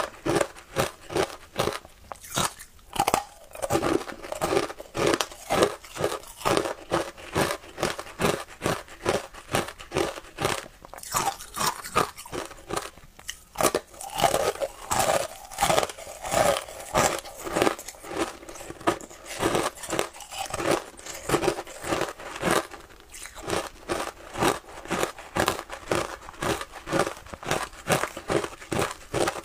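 Shaved ice coated with matcha milk powder crunching as it is bitten and chewed close to a clip-on microphone, in a quick, continuous run of crisp crunches.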